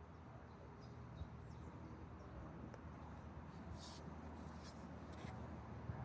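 Faint outdoor ambience: birds chirping now and then over a low steady rumble.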